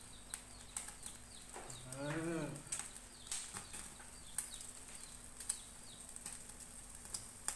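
Pork grilling on a wire rack over a gas burner, with scattered crackles and pops of fat. Small birds chirp throughout, and a short rising-and-falling animal call sounds once about two seconds in.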